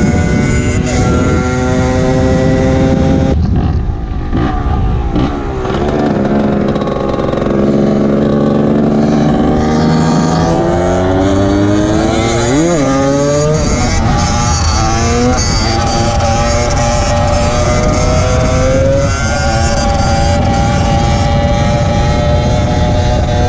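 Yamaha DT125X's single-cylinder two-stroke engine running hard. The revs climb and fall repeatedly through the gears, with one sharp blip up and down past the middle, then hold a steady high note toward the end.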